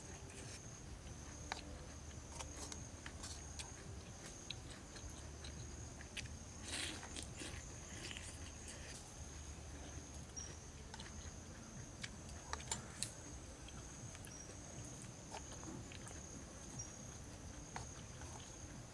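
Insects keep up a steady high-pitched drone. Over it come scattered small clicks and scrapes of a metal spoon in a hand-held bowl as someone eats.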